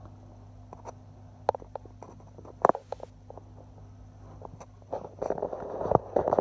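Handling noise from a clip-on phone lens lying over the phone's microphone: scattered clicks and scrapes over a steady low hum, growing into a louder continuous rustling about five seconds in.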